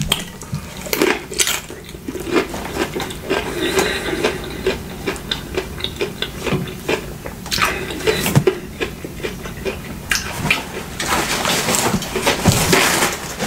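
Close-miked eating sounds: a spoon clicking and scraping in a takeout bowl amid chewing, with many irregular clicks and a longer rustling scrape near the end.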